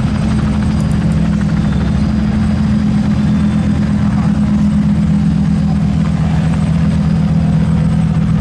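Lamborghini Huracán STO's naturally aspirated V10 running steadily at low revs as the car creeps along at walking pace, a deep, even drone with no revving.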